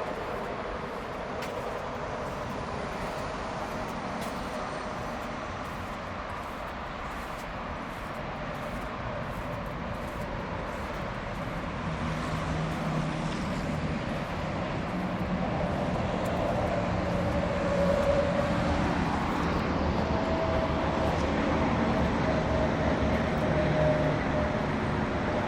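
A vehicle running with a steady noise, growing louder about halfway through as a steady engine drone comes in.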